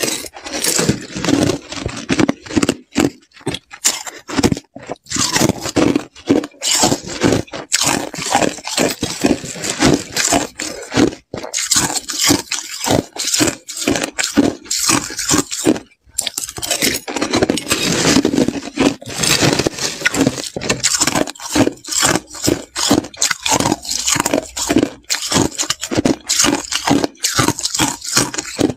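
Slushy ice being bitten and chewed close to a clip-on microphone: a dense, continuous run of crisp crunches and crackles.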